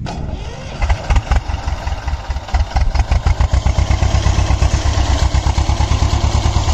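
T-25 tractor's air-cooled two-cylinder diesel engine coming in suddenly and running with an even, fast pulsing beat, getting louder about a second in.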